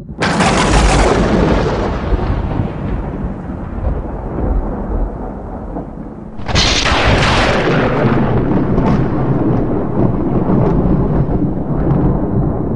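Thunder: a sudden loud crack just after the start that rolls into a long, decaying rumble, then a second crack about six and a half seconds in, followed by more rumbling.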